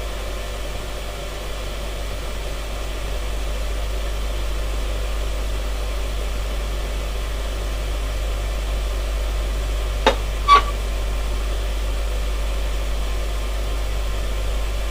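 Steady hiss with a low hum, and two short clicks a little after ten seconds in.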